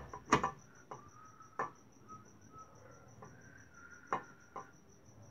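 Several sharp knocks and clinks, the loudest about a third of a second in and another at about four seconds, as the aluminium cover of a VW Golf five-speed transmission is handled and seated on the gearbox case. A cricket chirps steadily in a fast, even pulse behind them.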